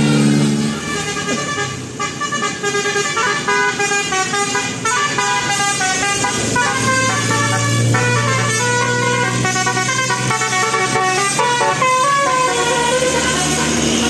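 Bus telolet horn, a multi-tone musical horn, playing a tune: a quick run of notes that keep stepping up and down in pitch.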